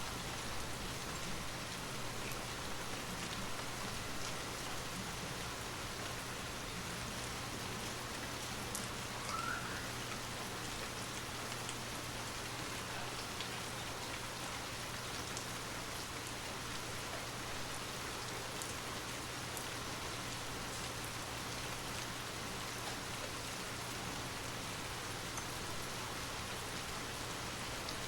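Steady rain: an even hiss of falling rain with scattered drops, over a faint low steady hum.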